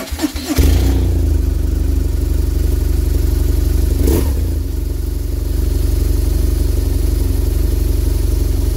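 BMW R1200GS boxer-twin engine cold-started at about 2.5 °C after winter storage: the starter cranks for under a second, the engine catches and settles into a steady, loud idle with an even low pulse. A single sharp knock sounds about four seconds in.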